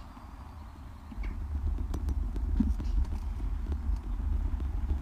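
Low rumble on an action camera's microphone, growing stronger about a second in, with scattered irregular light clicks and knocks.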